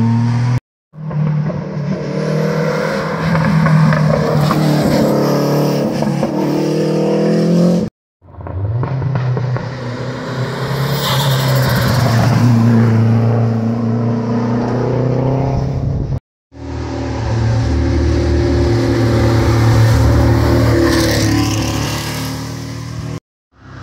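Historic rally cars passing at speed one after another, each engine revving hard with its pitch rising and falling. The sound cuts off abruptly twice between the cars.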